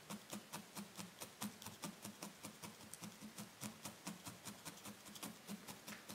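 Barbed felting needles in a hand-held multi-needle tool stabbing rapidly into wool, about five strokes a second, each a soft tap with a light click, as pink wool is worked into the inner ear of a needle-felted cat.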